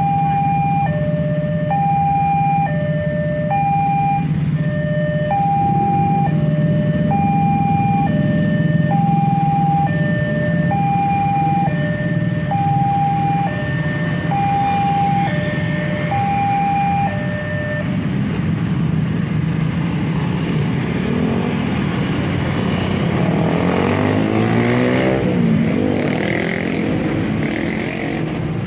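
Railway level-crossing alarm sounding two alternating warning tones, high and low, each held about half a second, over the steady hum of many idling motorbike engines. The alarm stops about 17 seconds in as the barriers go up. Then the motorbikes rev and pull away across the crossing, with many engine notes rising and falling.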